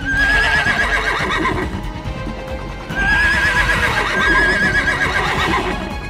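Horse whinny sound effect, two long wavering neighs about three seconds apart, over background music.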